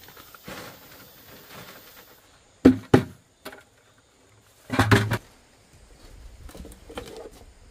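Two sharp knocks, then a bucket of soil tipped onto a wooden-framed wire-mesh sieve over a wheelbarrow with a short, loud clatter of gravel and earth. Near the end comes faint scraping as hands rub the soil through the mesh.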